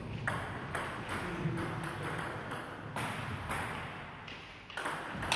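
Table tennis balls clicking sharply off bats and tables, a few hits spaced irregularly, ringing in a large echoing hall.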